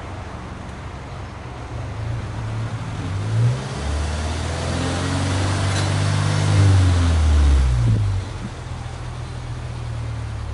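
Subaru Impreza G4's 1.6-litre flat-four heard at the exhaust tip, revved while parked: idling, then a quick blip about three seconds in and a held rev of about four seconds that climbs slightly in pitch before it drops back to idle near the end.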